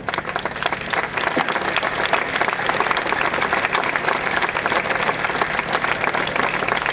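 Crowd applauding: dense, steady clapping that breaks out at once and keeps an even level.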